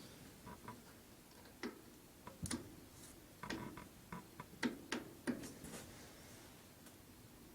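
About a dozen light, irregular clicks and taps of small metal parts being handled, as a collar is tried for fit in a freshly bored aluminum pulley.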